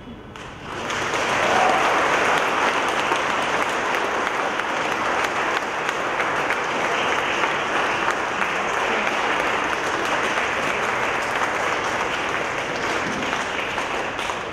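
Audience applauding at the end of a choir performance. The clapping begins suddenly about a second in and continues steadily.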